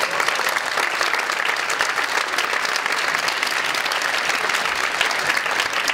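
Audience applauding: many hands clapping in a dense, steady wash of claps.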